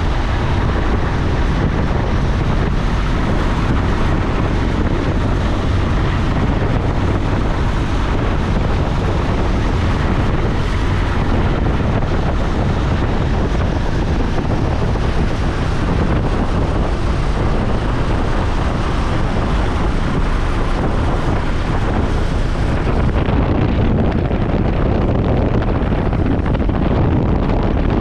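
Piper J-3 Cub in flight, heard from the cockpit: the engine and propeller drone steadily under heavy wind rush on the microphone. The higher hiss eases a little near the end.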